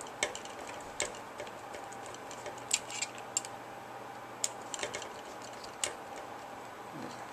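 Scattered, irregular light clicks and taps of a small hand tool on the set screw and plastic rotor head of a toy RC helicopter as the screw is tightened, over a faint steady hum.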